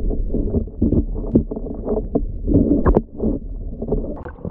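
Water sloshing and splashing, muffled as heard by a submerged camera, as a hooked brook trout struggles at the surface, with scattered short knocks and surges.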